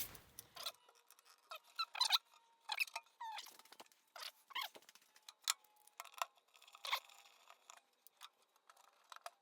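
Scattered faint clicks and short squeaks at irregular moments, the small noises of hands working on pinball parts.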